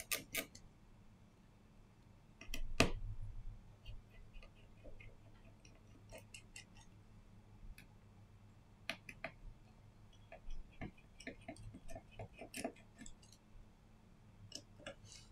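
Small repair tools clicking and tapping on a Samsung Galaxy A52s 5G phone during screen repair work: scattered light ticks at uneven spacing, with one heavier knock about three seconds in.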